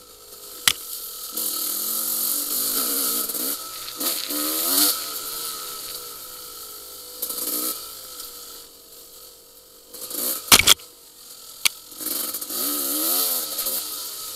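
Yamaha YZ250 two-stroke single-cylinder dirt bike engine being ridden, its pitch rising and falling over and over as the throttle is opened and closed. Several sharp knocks sound over it: one about a second in, and a cluster of knocks a little past the middle.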